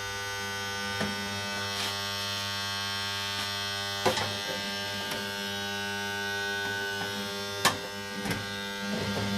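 Old AC contactor in the E57 siren's control box buzzing with a steady electrical hum, with a few sharp clicks, until the buzz cuts off at the very end. The buzzing marks the worn contactor that had stuck and kept the siren from switching off.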